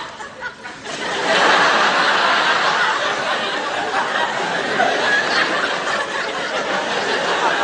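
Audience laughing at a stand-up joke. The laughter breaks out about a second in and carries on steadily.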